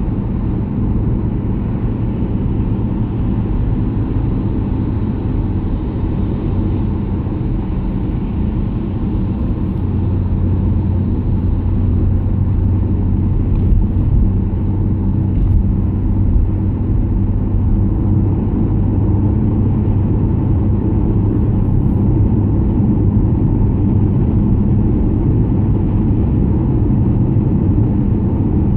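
Car road noise heard from inside the cabin while cruising on a wet road: a steady low rumble of tyres and engine, growing a little louder about ten seconds in.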